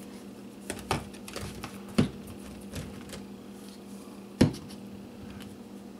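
Small plastic craft paint bottles and wooden toy train pieces being picked up and set down on a workbench: a handful of sharp knocks and clicks, the loudest about two seconds in and another about four and a half seconds in, over a steady low hum.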